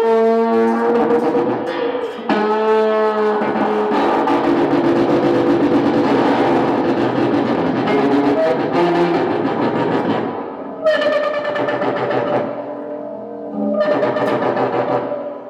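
Distorted electric guitar sounding long held notes that sustain for seconds at a time, the sound of a feedback device keeping the strings ringing. A denser, noisier stretch in the middle gives way to higher sustained notes near the end.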